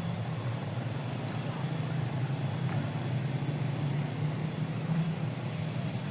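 A steady low motor drone that holds an even level throughout.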